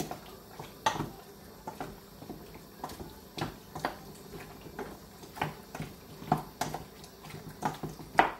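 Hands mixing raw chicken pieces in egg-white batter in a stainless-steel bowl: irregular wet squelches and slaps, with pieces knocking against the metal bowl.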